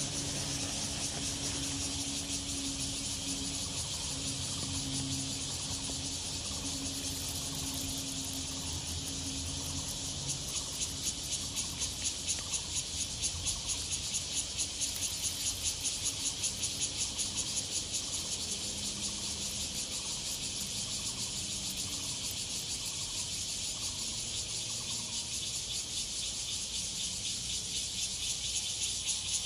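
Insects chirring in a steady chorus: a high-pitched, fast pulsing that never stops.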